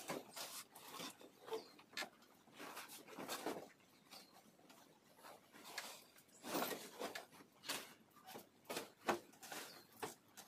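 Rustling and swishing of large pieces of cloth being shaken out and folded, in irregular swishes, busiest about six to seven seconds in.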